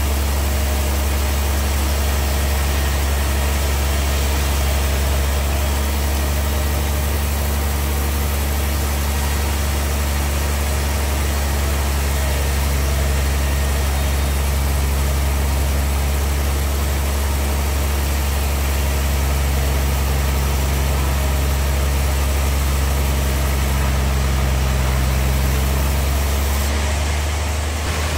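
Large band sawmill running steadily, its drive giving a constant low hum under an even whirring noise. The sound thins slightly near the end.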